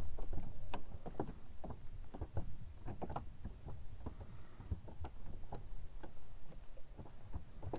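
Irregular small clicks, taps and rubs close to the microphone, as fingers handle a soft-plastic lure on its metal jig head and hook, over a low steady rumble.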